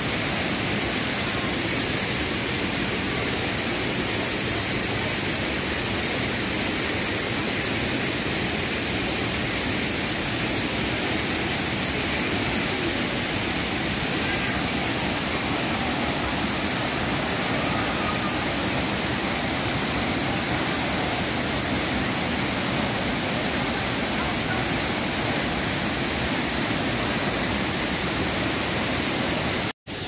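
Waterfall rushing steadily as water pours over rocks; the sound cuts off suddenly near the end.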